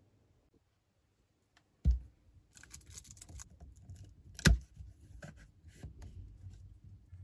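Close handling sounds: two sharp knocks, about two seconds in and again a little past the middle, with a run of small clicks and rustles between and after them.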